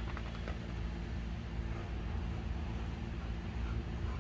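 Steady low droning hum of a running motor or machine, with a few faint light clicks just after the start.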